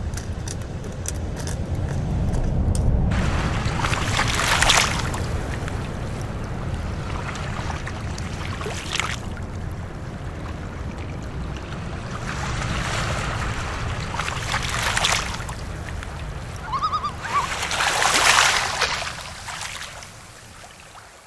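Sea waves washing in and drawing back every few seconds over a steady low rumble, the sound fading out near the end.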